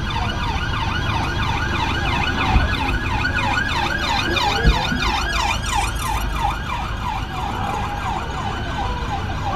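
Police siren on its fast yelp setting, a rapidly rising and falling wail of about four cycles a second, over a steady low rumble. Two brief thumps stand out, about two and a half seconds and just under five seconds in.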